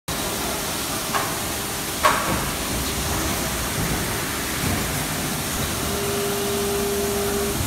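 Automatic plastic-cutlery packaging machine and factory machinery running with a steady mechanical hiss, a light knock a little over a second in and a louder clack about two seconds in. A steady low tone sounds for about a second and a half near the end.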